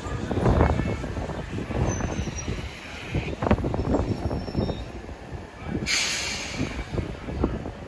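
New York City subway train moving through the station, wheels clanking over rail joints and squealing faintly at times, with a short burst of hissing air about six seconds in.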